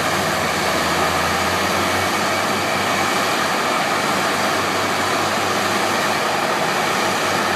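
Seismic vibrator (vibroseis) trucks running together in a line, a steady, loud engine noise with a broad hiss over it. A low hum under it fades out about a second and a half in.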